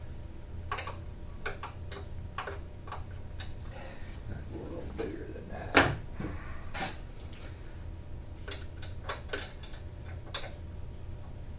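Hands and tools handling parts of a portable generator: scattered light clicks and knocks, with one sharper knock about six seconds in, over a steady low hum.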